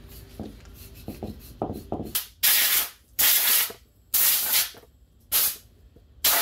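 Aerosol spray can hissing in five short bursts, each about half a second, onto a greasy used power steering gearbox being cleaned up; a few faint rubbing strokes come before the first burst.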